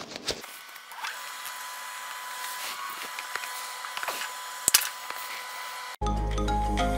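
Workshop fume extractor running as a steady hiss with a faint whine, with a couple of sharp clicks about two-thirds of the way through. About a second before the end, background music cuts in abruptly.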